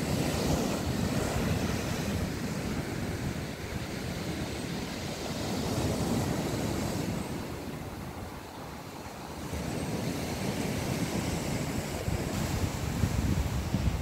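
Small sea waves breaking and washing up a sandy shore, with wind rumbling on the microphone. The sound eases briefly about two-thirds of the way through, then the wind gusts harder near the end.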